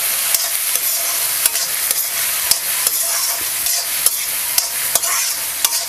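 Chopped onion and green chilli sizzling in hot oil in a kadai while a spatula stirs them, being sautéed until soft. The steady hiss of frying is broken by frequent short scrapes and clicks of the spatula against the pan.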